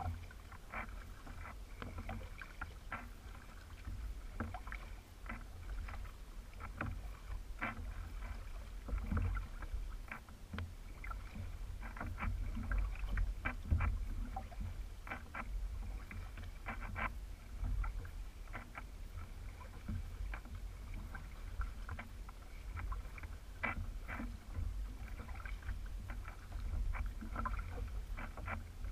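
Kayak paddling: water dripping and splashing off the paddle blades in many small, irregular splashes, over a steady low rumble of wind on the microphone.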